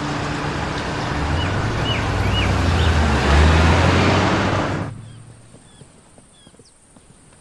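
A car passing close, a rising rush of engine and road noise that peaks and then cuts off suddenly about five seconds in. Short high chirps are left in the quiet afterwards.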